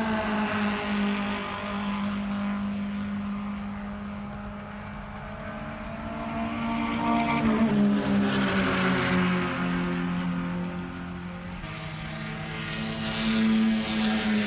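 Vintage race car engines running at speed as the cars pass one after another. The engine note swells to a loud pass about halfway through, dropping in pitch as the car goes by, and swells again near the end.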